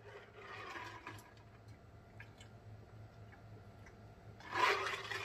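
A man drinking from a glass mug: quiet swallowing with small scattered clicks, then a louder breathy sound near the end.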